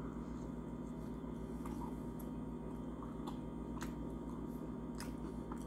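Close-up mouth sounds of a person chewing a mouthful of Jamaican beef patty: scattered soft clicks and smacks over a steady low electrical hum.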